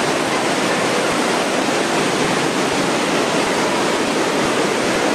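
Floodwater rushing along a flooded subway tunnel's track bed, a steady, loud rush of water.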